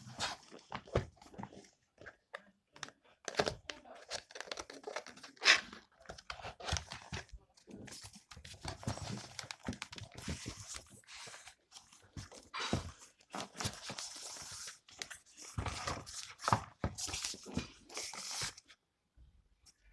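A gaming keyboard's packaging being handled and opened by hand, with irregular rustles and short knocks throughout.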